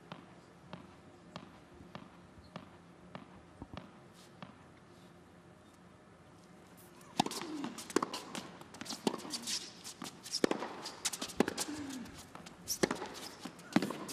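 A tennis ball is bounced on a hard court about every 0.6 s before the serve. Then, from about seven seconds in, comes a rally of loud racket strikes on the ball with shorter clicks between them.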